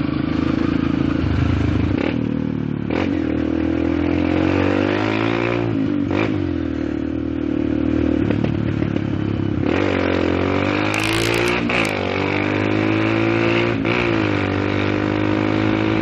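Motorcycle engine accelerating up through the gears: its pitch climbs and then drops at each upshift, about three times.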